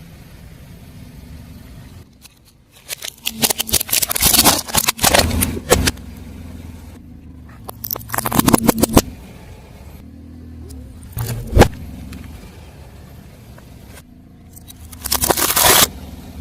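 Car tyre rolling over and crushing crunchy objects: four bursts of crunching and crackling, one of them a single sharp pop, over the steady low rumble of the car.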